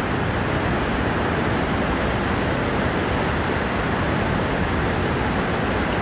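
Mountain river rushing over rocks: a steady, unbroken water noise.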